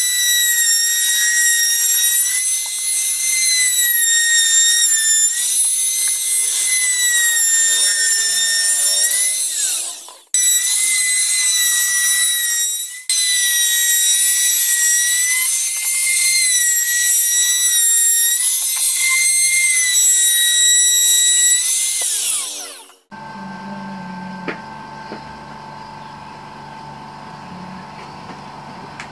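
Compact electric trim router running at full speed with an edge-profile bit cutting into pallet pine, a loud high whine whose pitch dips slightly as the bit bites. It cuts out twice for a moment, then stops about 23 seconds in, leaving a much quieter steady hum.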